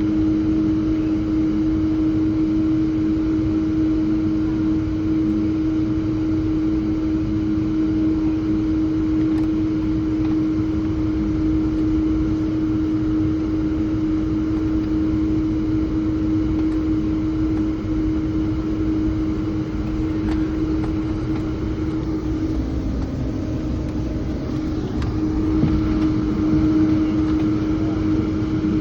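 Cabin noise inside an Embraer 195-E2 from its engines: a steady rumble with a droning hum. The hum dips in pitch about three-quarters of the way through and then comes back.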